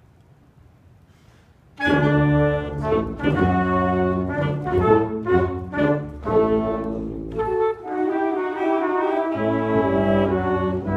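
A small wind ensemble of flutes, saxophones and other winds comes in together about two seconds in and plays chords, first in short separated notes, then in longer held, smoothly joined notes in the second half.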